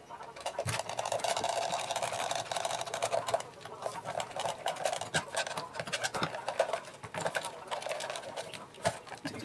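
Hands working plastic and metal parts of an airsoft rifle apart: a rapid, uneven run of small clicks, rattles and knocks, densest in the first few seconds.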